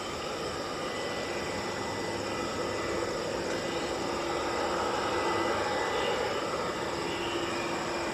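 Boeing 787-9 airliner's jet engines running at taxi power: a steady rushing whine that swells slightly partway through.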